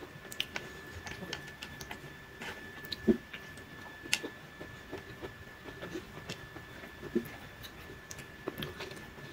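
Quiet eating by hand: fingers mixing and scooping rice on a ceramic plate, with scattered small clicks and soft chewing.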